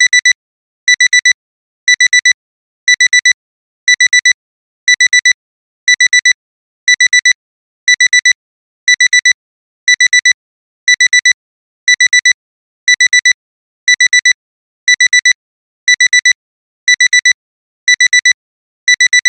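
Digital alarm-clock alarm beeping: a burst of four quick high-pitched beeps every second, repeating steadily. This is the alarm that sounds continuously once the timer has run out.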